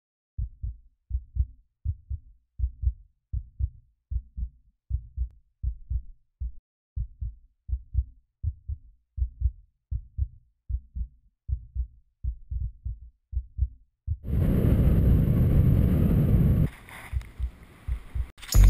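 Heartbeat sound effect: a steady lub-dub of paired low thumps, repeating evenly. About fourteen seconds in, it gives way to a loud rushing noise that lasts roughly two and a half seconds.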